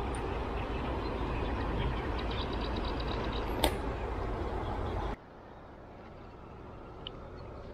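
Steady outdoor rushing noise with a heavy low rumble and a single sharp click about three and a half seconds in. Just after five seconds the noise drops off abruptly, leaving a fainter hiss.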